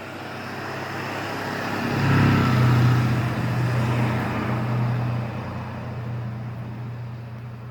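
A car passing by: its engine hum and tyre noise build up to a peak about two to three seconds in, then slowly fade away.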